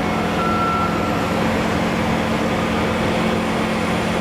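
Backup alarm beeping on railroad maintenance-of-way equipment over the steady running of its diesel engine. The beeps fade out about a second in, and the engine keeps running.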